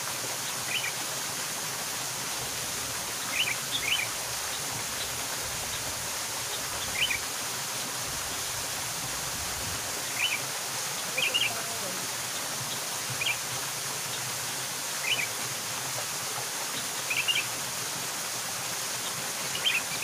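Steady rush of a small waterfall splashing into a pool, with a bird giving short chirps every couple of seconds.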